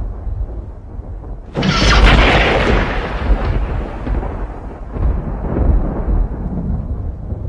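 A thunderclap: a sudden sharp lightning crack about a second and a half in, followed by a long rolling rumble that slowly dies away, swelling again briefly near the end.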